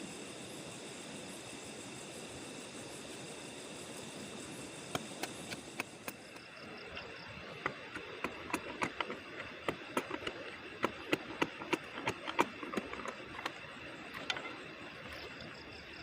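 Night insects such as crickets chirring steadily with a high hiss. From about five seconds in, a run of irregular sharp clicks and knocks.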